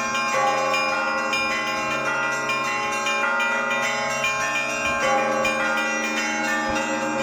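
Orthodox cathedral bells rung by hand in a trezvon, a peal of many bells sounding together. Many bell tones overlap and ring on without a break, with heavier fresh strikes about half a second in and again about five seconds in.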